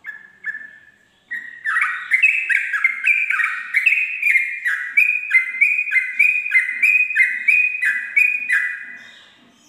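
Yellow-vented bulbul (trucuk) singing its rapid 'ropel' song. A few short notes open it, then comes a long unbroken run of quick, evenly repeated whistled notes, about four a second, which fades out near the end.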